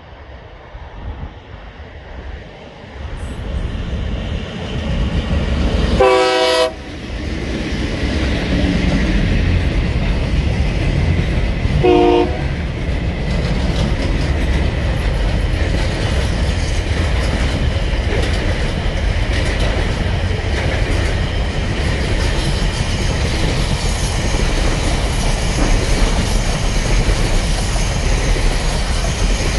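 Diesel freight train approaching and passing close by. The locomotive sounds its horn loudly for under a second about six seconds in, then briefly again about six seconds later. A long string of container wagons then rolls past with a steady rumble and wheel noise.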